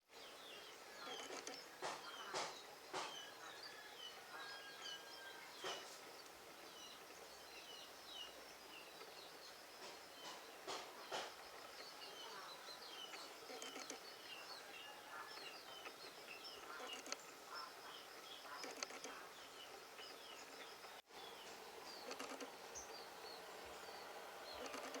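Small birds chirping and twittering, faint, with many short high calls throughout and a few sharp clicks here and there.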